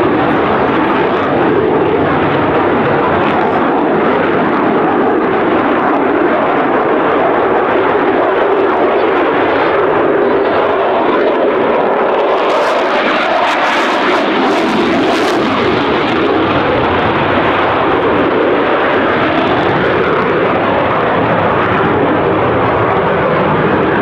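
Eurofighter Typhoon's twin turbofan jet engines, loud and steady as the fighter flies overhead, with a few brief crackles about halfway through.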